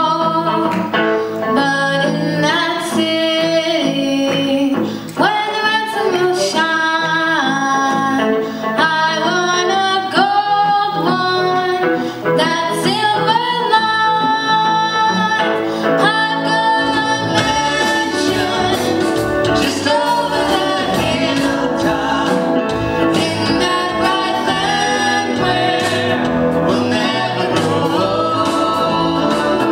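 A young girl's solo voice singing an old gospel hymn into a microphone, backed by a live band with guitar. The accompaniment fills out with a deeper low end a little over halfway through.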